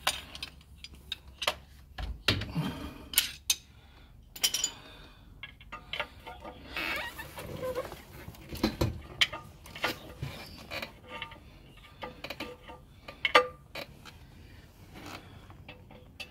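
Hand tools clicking and clinking irregularly against metal under a car while working at the torque converter bolts through the starter-motor opening, with the sharpest knock about 13 seconds in.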